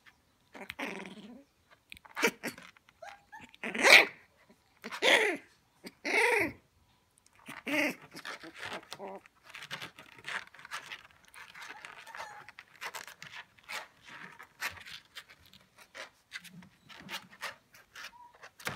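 Nineteen-day-old Shiba Inu puppies crying: about seven short, pitched yelps and whines in the first eight seconds, the loudest about four seconds in. After that comes a long run of small clicks and scratching as the puppies move about the crate.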